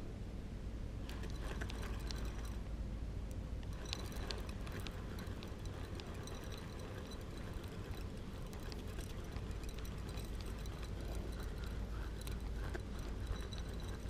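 Spinning fishing reel being cranked to retrieve line, with faint scattered ticks from the reel, over a steady low rumble.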